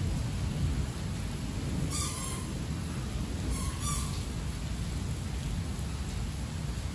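Heavy rain falling steadily with a low thunder rumble underneath. Short high calls cut through about two seconds in and twice more around four seconds.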